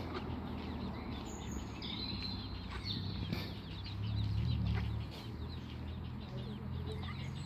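Mallard ducklings peeping: many short, high calls overlapping one another, over a low steady rumble that swells briefly about four seconds in.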